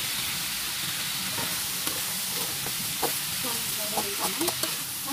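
Chicken stir-frying in a metal wok with a steady sizzle, the pan stirred with a utensil that scrapes and clicks against the metal several times from about a second and a half in.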